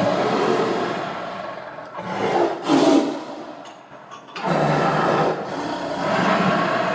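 Tiger growling and roaring in long, rough rumbles. The loudest roar comes about three seconds in, and after a short pause near the middle the growling starts again.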